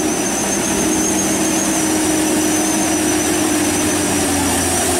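Road vehicles' engines running steadily as they pass on a wet road, over an even hiss of tyres on the wet surface; the engine note sinks slightly about four seconds in.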